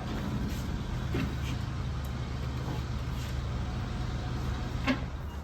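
Steady low rumble, with a few light knocks and clicks as glued plastic pipe fittings of the platform's base are pushed and pressed together.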